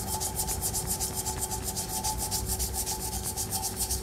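Green scouring pad scrubbed rapidly back and forth over a tarnished silver tumbler coated in a paste of cleaning powder and lemon juice, in quick, even scraping strokes, several a second, as the tarnish is worked off.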